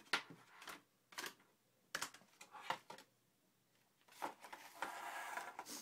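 Packaging being handled on a table: a few sharp taps and rustles as a cardboard box and cables are moved, then clear plastic wrapping crinkling for about a second and a half near the end.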